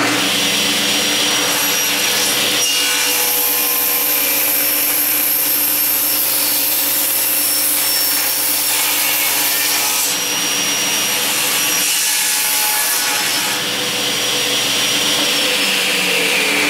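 Table saw with an 80-tooth non-ferrous carbide blade running and cutting through a thick solid 6061 aluminum block, with a high-pitched hiss while the blade is in the metal from about three to ten seconds in and again briefly around thirteen seconds. The stock is being fed a little hard, which throws a shower of chips and leaves a rough cut. Near the end a tone falls in pitch.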